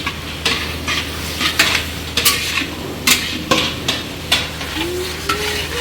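A spatula scraping and stirring a curry base in a pan of hot oil, over a steady frying sizzle, with a stroke about every half second to a second.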